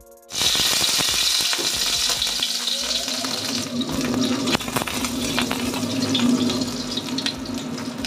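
Chopped aromatics hitting hot oil in a wok: a loud sizzle starts suddenly and carries on as they fry, with the clicks and scrapes of a wooden spatula stirring them in the pan.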